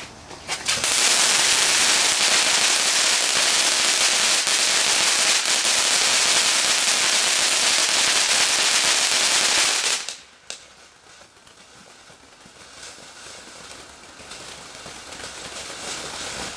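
Firework going off with a dense, steady crackling hiss for about nine seconds, starting about a second in and stopping abruptly. A much fainter hiss slowly builds near the end.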